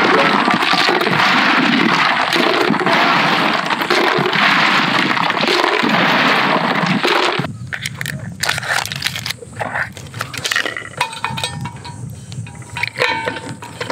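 Ice cubes poured into the stainless steel cooling box of a draft beer server, a loud dense clatter that stops about seven and a half seconds in. Quieter scattered clicks and knocks follow.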